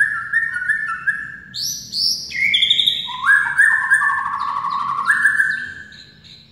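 White-rumped shama (murai batu) singing a loud burst, a 'tembakan': phrases of rapidly repeated clear whistled notes, each phrase at a different pitch, some shrill and high, others lower. Its keeper judges the burst not yet at full strength. The song stops near the end.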